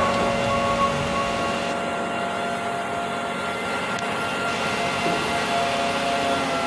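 A steady machine drone, like a heavy engine running, made of several held tones over a hiss, with a sharp click right at the start.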